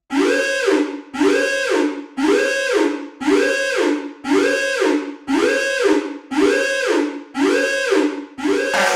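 Electronic tone that swoops up in pitch, holds and slides back down, repeated evenly about once a second, nine times in a row.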